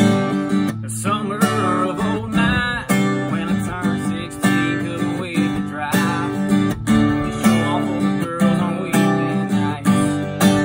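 Cutaway acoustic guitar strummed in a steady rhythm, playing a song's chords.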